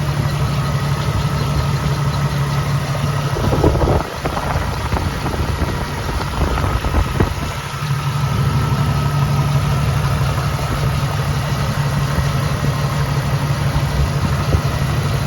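1983 Jeep CJ7's 4.2-litre fuel-injected inline-six idling steadily. The hum weakens for a few seconds from about four seconds in, with a few light clicks, then steadies again.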